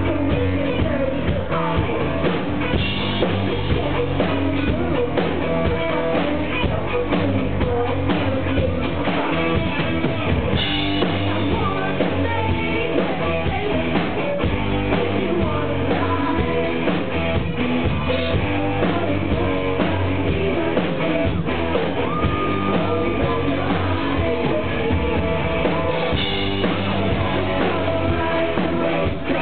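Live synth-rock band playing: singing over keyboards, guitar and drums, loud and steady, recorded from among the audience.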